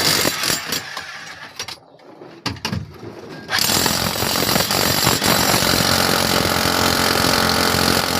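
A power tool running, uneven and stop-start for the first few seconds, then running steadily and loud from about three and a half seconds in.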